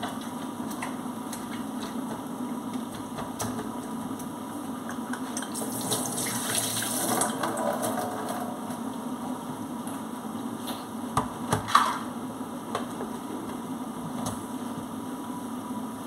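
Water from a kitchen sink tap running for a couple of seconds about six seconds in, over a steady low hum. A few sharp knocks of things handled at the sink come about twelve seconds in.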